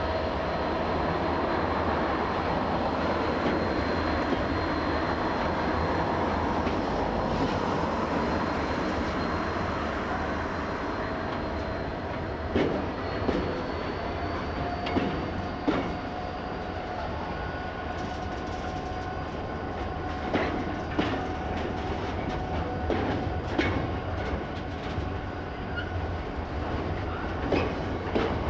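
A Freightliner Class 66 diesel locomotive passes with its engine running, followed by a long intermodal container train rolling by. From about twelve seconds in, the wagon wheels clack irregularly over rail joints, with a thin steady wheel squeal underneath.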